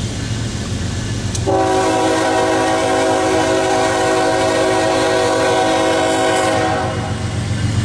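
Diesel locomotive air horn on a freight train sounding one long chord blast, starting about a second and a half in and stopping shortly before the end, over a steady low engine hum.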